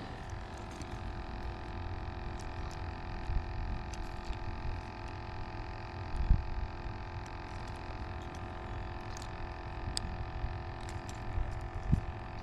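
Steady low hum made of several held tones, over a low rumble, with a few faint clicks and one soft thump about six seconds in.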